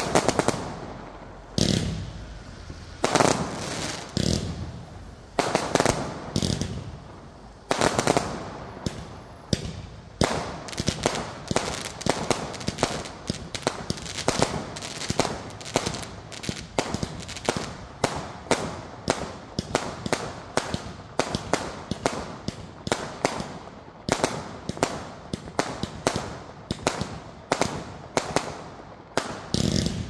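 Fireworks going off: a few separate loud bangs over the first several seconds, then from about ten seconds in a rapid, steady barrage of launches and bangs, several a second, that stops just before the end.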